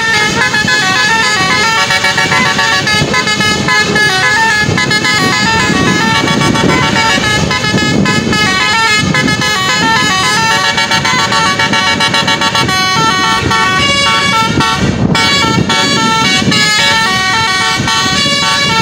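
Tour bus's telolet basuri multi-tone horn playing a melody, its notes stepping up and down without a pause except a brief break about fifteen seconds in. Voices and road noise run underneath.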